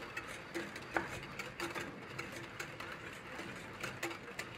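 Wire whisk clicking rapidly and lightly against the side of a heat-proof glass bowl, beating butter into warm egg yolks to emulsify a béarnaise sauce.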